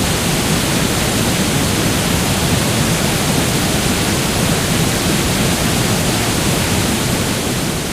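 Waterfall: a steady, dense rush of falling water, even and unbroken, beginning to fade out near the end.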